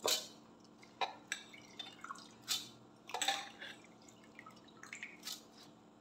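Handfuls of soaked rice and dal scooped out of their soaking water in a stainless steel pot, with water splashing and dripping back in. It comes as a run of irregular short splashes and drips, the loudest at the start and about three seconds in. This is the soaked grain being moved to the grinder jar for dosa batter.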